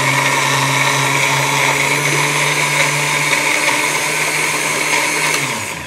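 Countertop blender with a glass jar running steadily, blending milk, Oreos, carrots and grapes into a drink. The motor winds down, falling in pitch, as it is switched off near the end.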